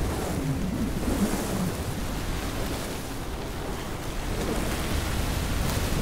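Sandstorm wind blowing in a steady rush, with a few low swells of gusts.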